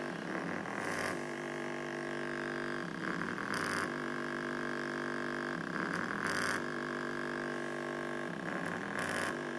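Small 15-watt subwoofer driven flat out by an amplifier, making a steady distorted buzz with a harsher burst about every three seconds. It is being overloaded in an attempt to burn it out.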